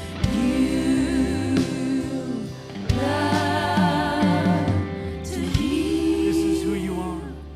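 Slow worship music: a singer holds three long phrases, each swooping up into a note with vibrato, over a sustained instrumental backing.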